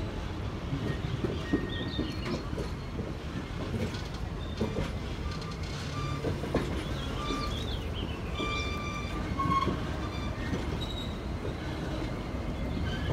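Circus train's coach and container flatcars rolling past on jointed track: a steady low rumble with occasional knocks from the wheels and short, high-pitched wheel squeals coming and going.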